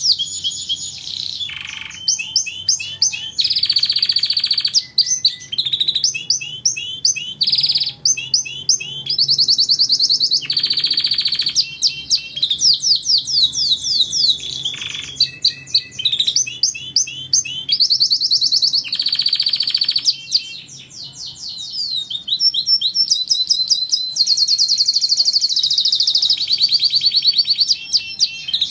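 Domestic canary singing continuously: runs of fast repeated chirps and trills, switching to a new phrase every second or two.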